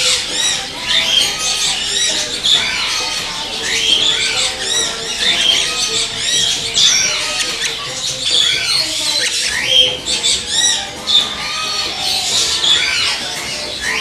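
A dense chorus of many parrots chirping, whistling and squawking at once: short rising-and-falling calls overlapping continuously.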